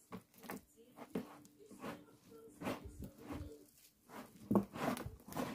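A rubber-gloved hand working damp potting soil mixed with a blended fruit-peel and coffee-ground mash in a tub: irregular scraping, rustling strokes a few each second, louder from about four seconds in.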